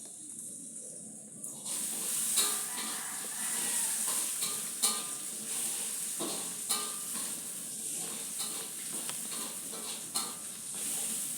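Crackly crinkling and rustling of paper and clear packing tape being handled and pressed, with scattered sharp clicks.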